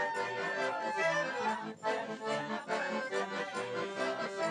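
Live traditional folk music: a dance tune of held chords over a steady beat, played by a small folk troupe.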